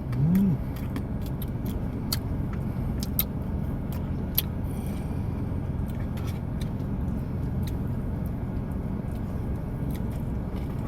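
Eating sounds: scattered light clicks from utensils and the mouth while tiramisu cake is chewed, over a steady low rumble. A short hummed 'mm' comes right at the start.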